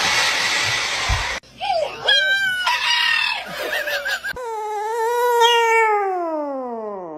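A hair dryer blowing for about a second and a half, cut off abruptly. Then a dog making short wavering calls, and then a small dog howling in one long call that sinks in pitch toward the end.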